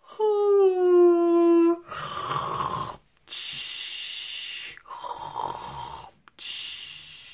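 Snoring for a sleeping toy figure: rattling inhales alternating with hissing exhales, two full breaths about three seconds apart. It is preceded by a long, slightly falling pitched tone in the first second and a half.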